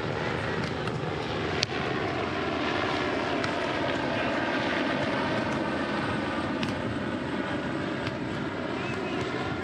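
A propeller airplane drones overhead, its engine tone sliding slowly down in pitch. It is punctuated by a few sharp slaps of a volleyball being struck, the loudest about one and a half seconds in.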